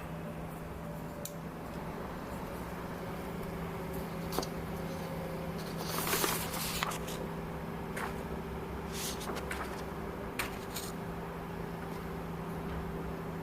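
Small motor of a two-bladed MIKO mini USB fan running with a steady hum. A few sharp clicks and a short rustle about halfway through are the loudest sounds.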